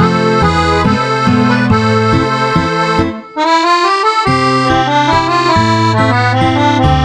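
Instrumental background music with a steady rhythmic bass line that drops out briefly about three seconds in.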